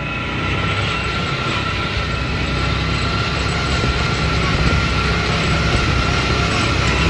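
Off-road buggy driving along a dirt track, its engine running steadily with a steady high whine on top, growing slightly louder toward the end.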